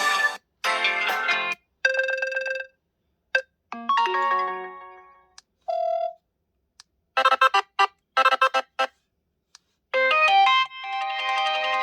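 HTC U23 Pro ringtones played one after another: a series of short melodic tones and chimes, each stopping abruptly after a second or two with brief gaps between. One is a quick staccato pattern, and a fuller sustained melody begins near the end.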